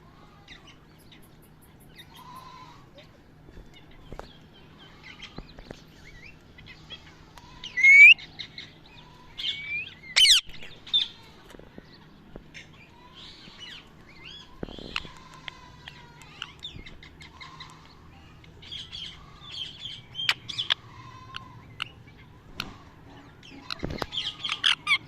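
A parrot calling with short chirps and squawks, some gliding up or down in pitch, the loudest calls about eight and ten seconds in and quicker runs of chatter near the end. A faint steady low hum runs underneath.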